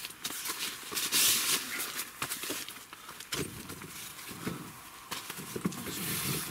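Closed-cell foam sleeping pad (Therm-a-Rest Z Lite Sol) being unfolded and laid out on a fabric camp cot, its accordion folds rustling and scuffing, loudest about a second in, then pressed and smoothed flat with lower scuffing sounds.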